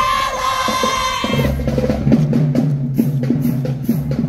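Marching band drumline playing a marching cadence: snare and bass drums beating in a steady rhythm with regular cymbal splashes. A long held high note sounds at the start, and the drums come in fuller about a second in.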